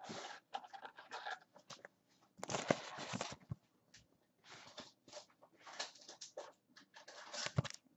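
Faint, intermittent rustling and light clicks of fingers handling a trading card, in short irregular bursts.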